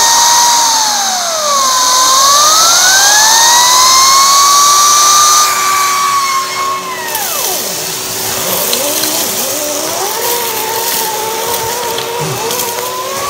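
Henry cordless vacuum cleaner running with a Henry Pro kit brush tool on carpet. Its whine dips in pitch and climbs back in the first few seconds, then falls away sharply about seven seconds in, after which a lower, wavering whine carries on.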